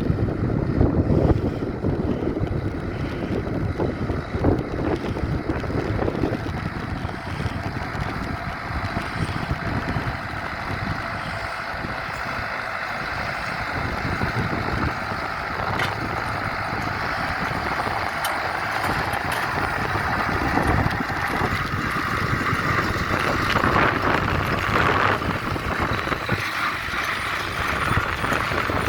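Claas tractor pulling a John Deere baler, engine and baler running steadily, with wind buffeting the microphone.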